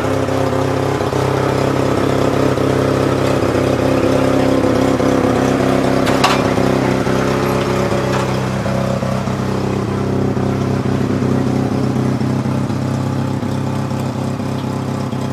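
A large engine running steadily at a constant speed, with one sharp click about six seconds in.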